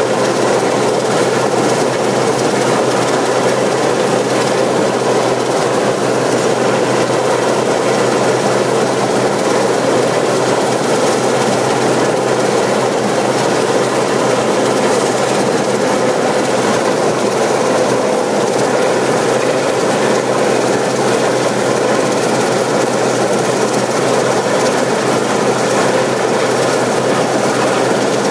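Westland Sea King helicopter hovering close overhead, its main rotor and twin turbine engines running loud and steady, with a thin high whine over the rotor noise.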